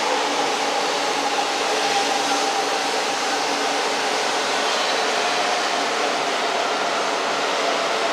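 JR East E4 series Max double-decker Shinkansen pulling into the station: a steady rush of running noise with a faint whine that slowly falls in pitch as the train slows to a stop.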